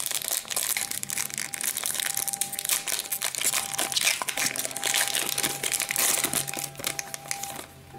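Foil wrapper of a hockey card pack crinkling and tearing as it is opened by hand: a dense, continuous crackle that stops shortly before the end.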